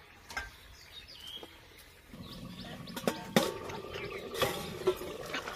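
A few faint bird chirps, then a low steady rushing from the covered wok over the fire. A few sharp clinks follow as the steel lid is handled on the iron wok, one of them ringing briefly.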